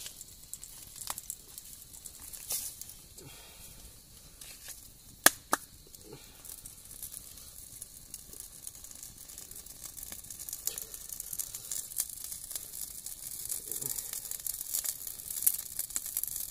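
Wood fire crackling and hissing as an animal's fur is singed off in the flames, with scattered sharp pops, two loud ones about five seconds in. In the second half, hands rubbing and pulling at the burnt fur add a rustling, tearing scrape.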